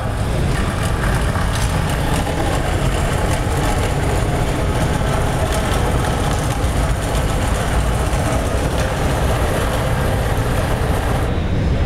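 iRobot Looj robotic gutter cleaner driving along a gutter with its auger spinning through debris: a steady, loud machine noise that stops just before the end.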